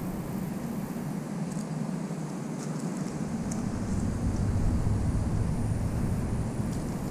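Steady low rumbling outdoor noise that grows somewhat louder about four seconds in, with a few faint ticks.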